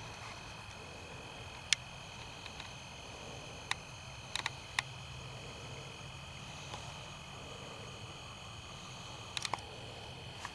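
A steady high-pitched drone of several even tones over a low hum and hiss, broken by a few sharp clicks of a handheld camcorder being handled: one about two seconds in, a quick cluster around four to five seconds in, and another cluster near the end.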